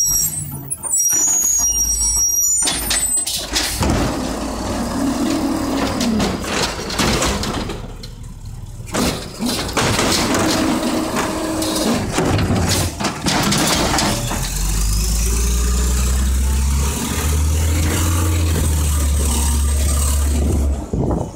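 Mack LE garbage truck with an Amrep automated side loader working a cart. A few high squeals come right at the start. The engine then revs while the hydraulics whine in rising and falling sweeps as the arm lifts and dumps the cart. In the last several seconds there is a steady low engine drone as the truck pulls ahead.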